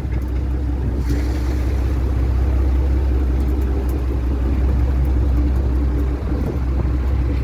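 Fishing boat's engine running steadily, a continuous low drone.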